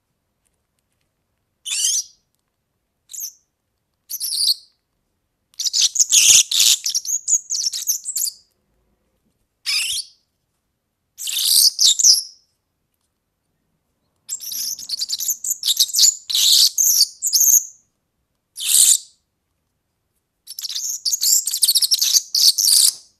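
European serin singing: a string of high-pitched song phrases, three long ones of two to three seconds and several short ones, separated by silent gaps.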